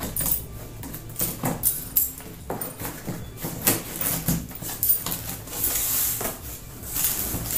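Small scissors slitting the packing tape along a cardboard box, a run of short scrapes and snips, then the cardboard flaps are pulled open near the end.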